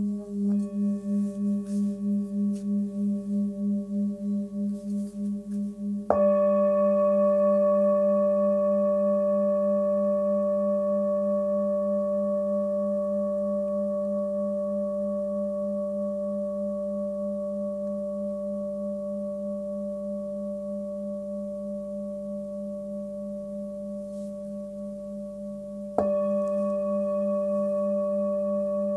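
Forged Sun Moon singing bowl, 18 cm, with its low tone near 205 Hz (G#), struck with a padded mallet about six seconds in and again near the end. Each strike rings on long and fades slowly, the low tone wavering in a steady pulse under higher overtones.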